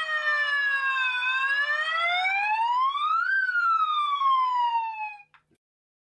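Electronic tone from a loudspeaker sweeping in pitch: it glides down, rises to a peak about three seconds in, then falls again before cutting off suddenly.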